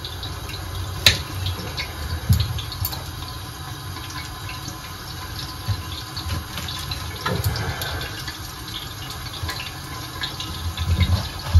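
A knife cutting artichokes into quarters, with irregular clicks and knocks of the blade and board, over a steady hiss.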